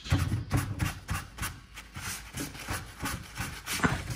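A rag rubbing over a chalk-painted wooden drawer front in quick, uneven back-and-forth strokes, buffing in dark wax.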